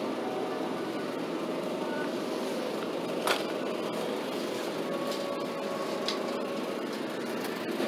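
Steady mechanical background hum with a wire shopping cart rattling. About three seconds in there is one sharp knock as a packet of pork bones is dropped into the cart, and a few lighter clicks follow.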